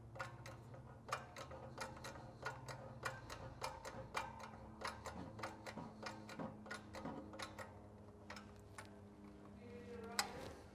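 Faint, irregular light metallic clicks and clinks, two or three a second, some briefly ringing, as the steel press tube is fitted against a Porsche 915 transaxle pinion shaft and its gear stack. A slightly louder clink comes near the end.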